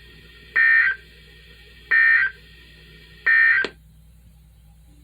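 Emergency Alert System end-of-message signal on NOAA Weather Radio: three short bursts of raspy SAME data tones, each under half a second and about a second and a half apart, over a faint steady hum. The bursts mark the end of the alert broadcast.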